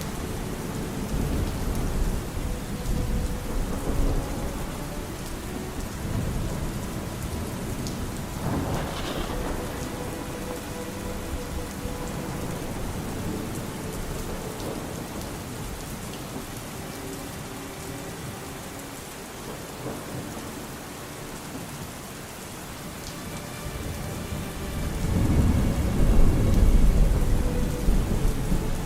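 Steady rain falling, with low rolls of thunder. The loudest rumble swells near the end. Faint held notes of distant music lie underneath.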